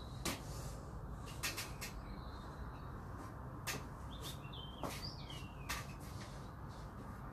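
Steady low hum with scattered sharp clicks, about eight in all, and a few short high chirps that bend up and down around the middle.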